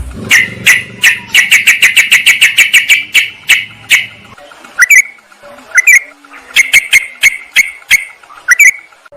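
Yellow-vented bulbul (trucukan) calls: a fast chattering run of short chirps, about six a second, for the first few seconds, then scattered single chirps. A low rumble sits under the first half.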